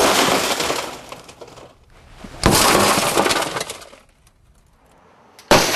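Car door window glass shattering, struck with a glass-breaking cap on the butt of a police baton. There are three breaks: at the very start, about two and a half seconds in, and near the end, each a sudden crash that fades over about a second and a half.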